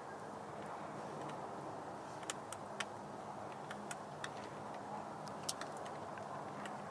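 Light, sharp clicks and taps of small plastic airbag wiring connectors being handled and pushed together at a steering column. The clicks come irregularly from about two seconds in to about five and a half, over a steady low hum.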